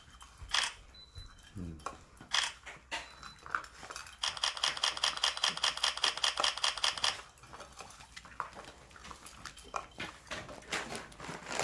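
A dog eating small dry kibble from a bowl: scattered crunches and clinks of kibble against the bowl, with a fast, even run of clicks from about four to seven seconds in.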